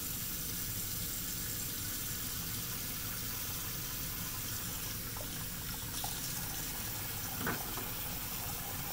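Bathroom tap running steadily into the sink while a safety razor is rinsed under it.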